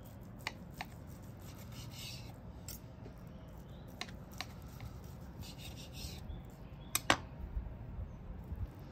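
Knife sawing through bacon-wrapped meatloaf and rasping against a cutting board, with light clicks of the knife and fork. A pair of sharp clicks about seven seconds in is the loudest.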